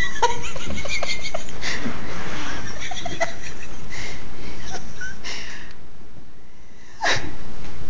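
A person laughing and giggling in short bursts, with a few quieter gaps and a last loud burst near the end.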